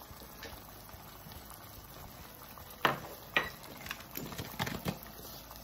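Pot of chicken simmering steadily on the stove, with two sharp clacks about three seconds in and a few lighter knocks just after, from things being handled on the counter.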